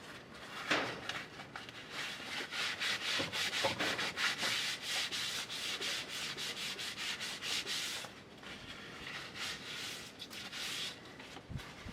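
Rapid rubbing strokes, about four a second, easing off briefly about eight seconds in and then starting again.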